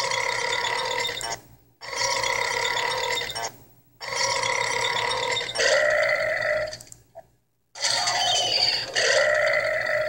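Cartoon burp sound effects: a run of long, pitched belches, each lasting a second or two, with short silent breaks between them.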